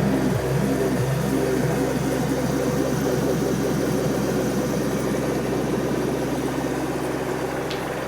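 Fidget spinner whirring, a steady hum that slowly fades as the spin winds down.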